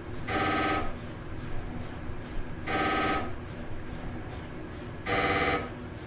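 Phone ringtone playing: a short warbling electronic ring repeated three times, each ring about half a second long and about two and a half seconds apart.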